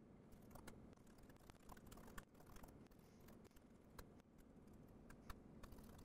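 Faint, irregular clicking of typing on a laptop keyboard.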